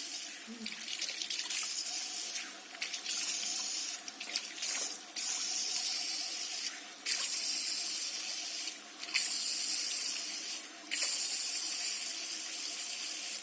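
Handheld shower sprayer running water over a dog's coat during a bath, a steady loud hiss broken by short breaks several times as the spray is moved or blocked.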